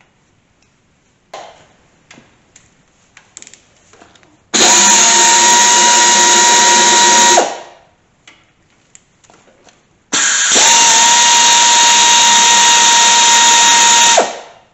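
A handheld pneumatic drill on an air hose runs at full speed twice, for about three seconds and then four, with a steady whine and air hiss. It stops sharply each time, driving a socket on bolts at the front of a Pontiac 350 V8 block. Light clinks of parts being handled come before and between the runs.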